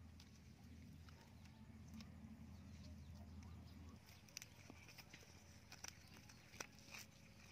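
Near silence: faint outdoor room tone with a low hum, and a few soft clicks in the second half.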